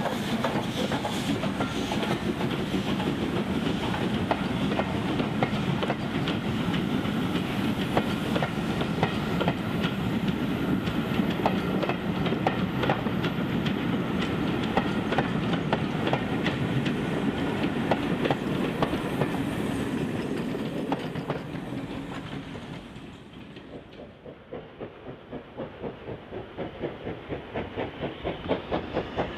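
Coaches of a steam-hauled train rolling past, wheels clicking over the rail joints, fading away as the train draws off. Then comes a distant steam locomotive working, its exhaust beats about two a second and growing louder.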